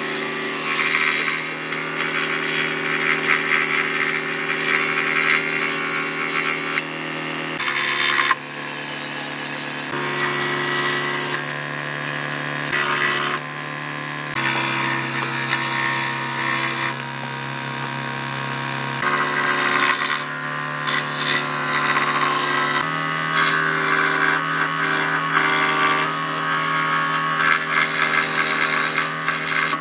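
Ryobi 405 mm scroll saw running, its fine reciprocating blade cutting gear teeth into a wooden blank: a steady motor hum under the hiss of the cut. The hum's pitch changes abruptly every few seconds.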